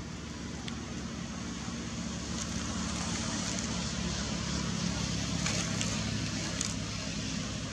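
Steady outdoor background noise: a low, engine-like hum under a broad hiss, swelling slightly and easing off, with a few faint clicks.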